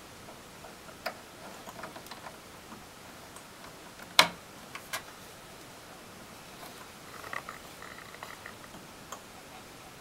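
Light plastic clicks and cable rattles as a power-supply cable is handled and the two-part CPU power plug is pushed into its motherboard socket, with one sharp, loud click about four seconds in and a smaller one just after.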